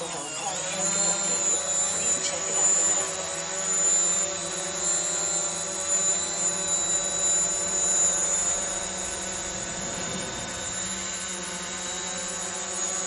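Small folding quadcopter drone's propellers whining as it climbs off the ground and hovers. The pitch rises over the first second as it goes up, then holds fairly steady with small swells.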